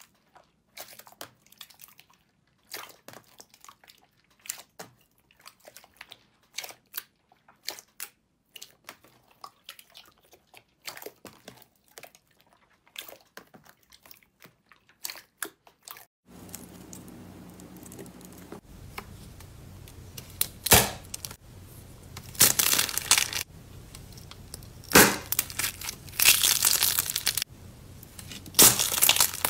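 Glossy slime kneaded and stretched by hand, giving sparse sticky clicks and pops. About 16 s in the sound cuts to a steady low hum with louder, denser crackling and crunching bursts as something is squeezed and crushed.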